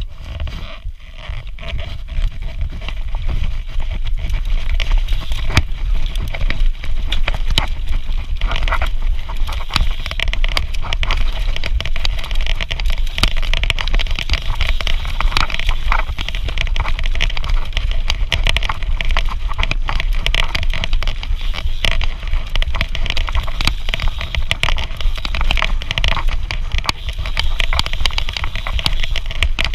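Mountain bike ridden fast down a rough forest dirt trail, heard from a helmet camera: a constant dense rattle and clatter from the bike over the bumpy ground, with tyres crunching on dirt over a heavy low rumble. It builds over the first few seconds as the bike gets up to speed.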